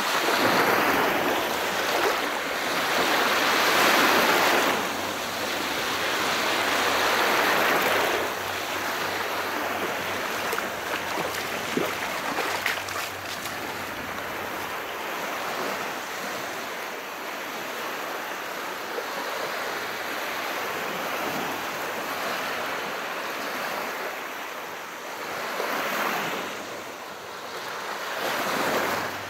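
Calm sea: waves washing in and ebbing in slow surges of hiss, strongest in the first eight seconds, with another swell near the end.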